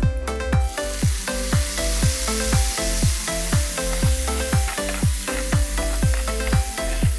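Food sizzling in hot oil in a pan, starting about a second in, under background music with a steady beat of about two drum hits a second.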